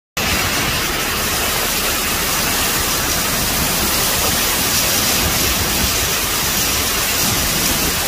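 Typhoon wind and heavy rain: a loud, steady rush of noise, with gusts buffeting the microphone.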